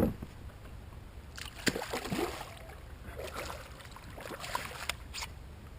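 Light splashes and small knocks on a kayak, with water trickling and dripping, while a landed fish is handled.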